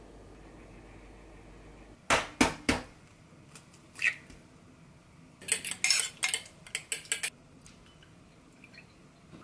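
An egg knocked three times on the rim of a ceramic bowl to crack it, then a fork beating the egg in the ceramic bowl in a quick run of clinks a few seconds later.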